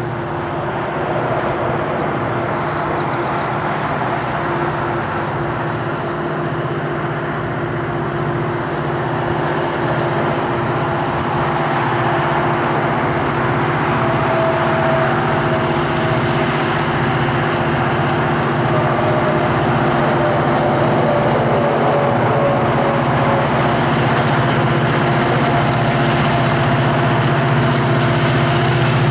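Union Pacific diesel freight locomotives working under load as they pull a mixed freight upgrade, the engines droning steadily and growing louder as the train approaches. A faint whine drifts slightly downward in the middle.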